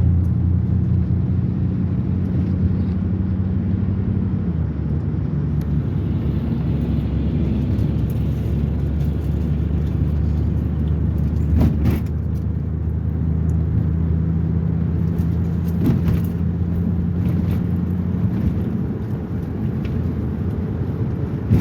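Motor vehicle running on the road: a steady low engine drone with road noise, its pitch dropping a step about four seconds in, and a couple of faint knocks partway through.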